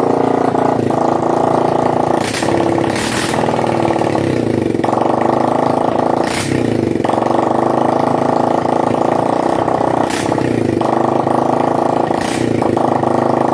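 Hero Hunk motorcycle's single-cylinder four-stroke engine idling, blipped about five times; each rev rises sharply and then falls back to idle.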